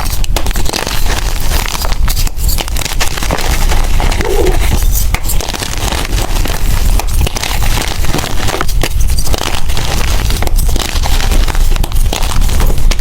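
Blocks of gym chalk being crushed and crumbled by hand: dense, continuous crunching and crackling, with many small snaps close together.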